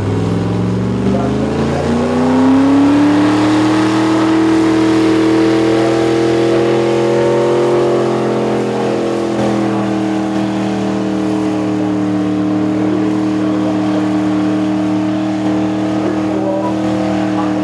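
Supercharged, methanol-fuelled engine of a Holden Commodore wagon revving hard during a burnout: the revs climb over the first couple of seconds, then are held high and steady, easing slightly about halfway through.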